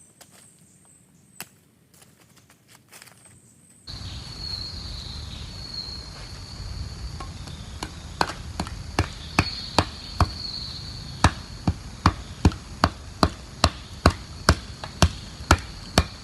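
Wood being chopped: repeated sharp blows, about two a second through the second half, over a steady high insect drone.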